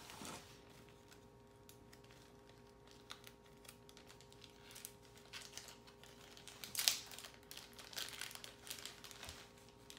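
Plastic packaging crinkling and light clicks of plastic toy parts being handled, with the loudest rustle about seven seconds in. A faint steady hum runs underneath.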